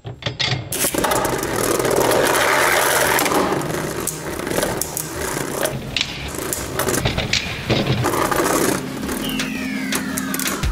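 Beyblade Burst spinning tops launched into a plastic stadium, starting abruptly about a second in. The tips whir and scrape on the stadium floor, with repeated sharp clacks as the tops strike each other. A falling whine comes near the end.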